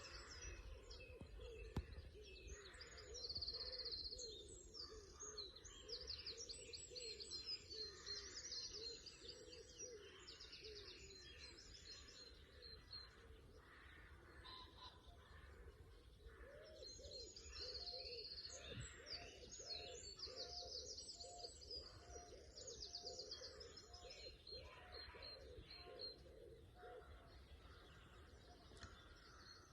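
Dawn chorus: several songbirds singing at once in quick, overlapping high phrases, with a lower-pitched call repeated many times underneath for much of the time.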